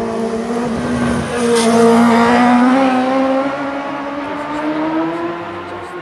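Racing motorcycle engine approaching and passing close by at speed, loudest about two seconds in. Its note dips briefly, then climbs steadily as the bike accelerates away.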